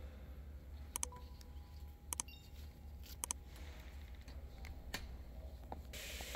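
A handful of sharp plastic clicks, a second or so apart, as the radiator's plastic air deflector and its push pins are pressed into place, over a steady low hum.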